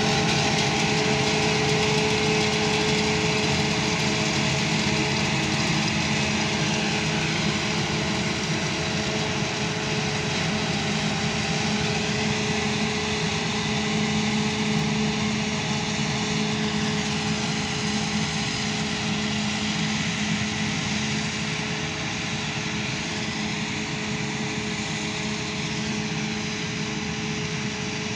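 Claas Jaguar 840 forage harvester chopping standing maize for silage, with a tractor running alongside towing the trailer it fills: a steady heavy machinery drone with a constant whine, growing gradually fainter as the machines move away.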